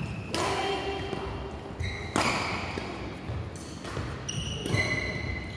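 Echoing badminton hall: several sharp racket-on-shuttlecock hits spread across a few seconds, with short high squeaks of shoes on the court floor after some of them.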